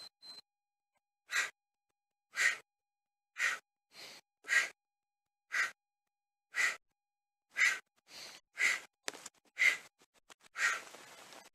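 A man exhaling hard in short, sharp breaths about once a second, in rhythm with a fast bodyweight HIIT exercise: breathing from exertion. There is a longer, louder breath near the end.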